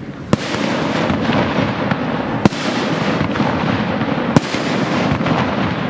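Fireworks display: three sharp bangs of mortar-fired aerial shells, about two seconds apart, over a continuous dense crackle.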